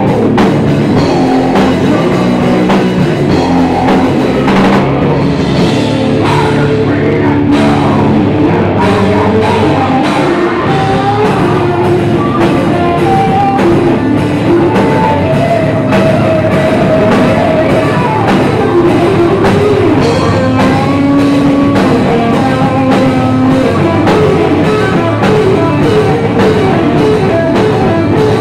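Live rock band playing loudly on electric guitars and drum kit.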